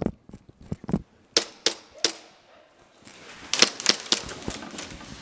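Airsoft guns firing: a scattered series of sharp pops, with a quicker cluster of shots a little past halfway.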